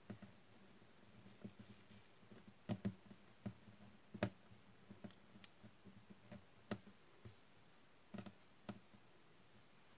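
Faint, scattered soft clicks and taps as hands pull thick macramé cord tight on a tabletop, with near silence between them.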